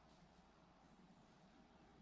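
Near silence: faint room tone, a steady hiss with a low hum.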